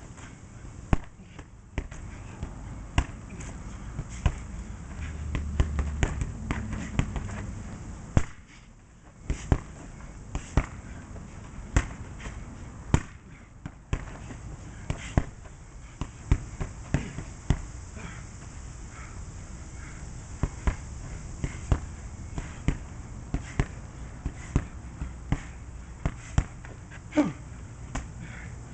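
Gloved punches and kicks landing on a hanging heavy punching bag: sharp thuds in quick, irregular combinations with short pauses between them.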